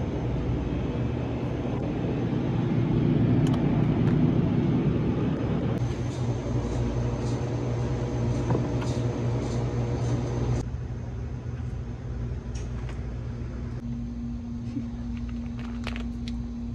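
Steady low mechanical hum of supermarket refrigerated display freezers, changing abruptly twice. A few light clicks and rustles come near the end.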